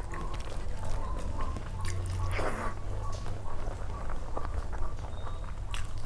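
A person chewing and eating a rice-and-curry meal, with many small wet mouth clicks.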